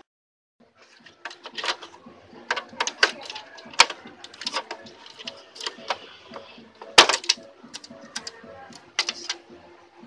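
Irregular plastic clicks and taps as the opened chassis and cable clips of a Brother DCP-T310 inkjet printer are handled, with a sharp click about seven seconds in.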